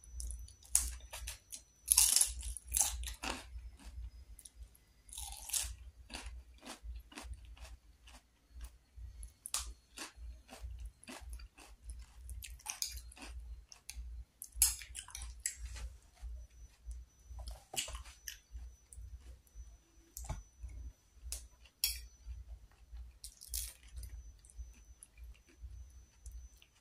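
Eating batagor, fried fish dumplings and tofu in peanut sauce: irregular crunching bites and chewing, with a handful of much louder crunches scattered through, and a fork clicking against the plate.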